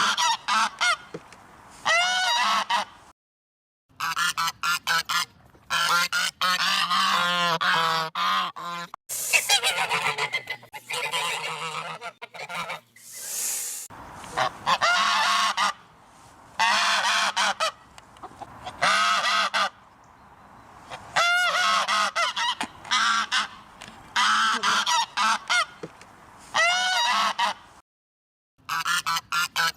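Geese honking over and over in loud, rapid bursts of calls, broken twice by sudden total silence.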